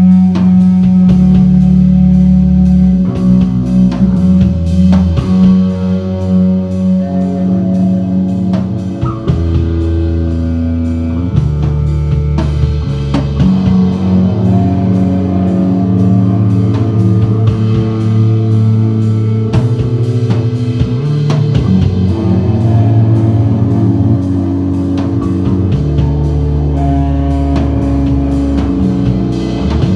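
Live rock band playing without singing: electric guitar and a heavy, sustained bass line that moves to a new note every second or two, over a drum kit with steady cymbal strikes.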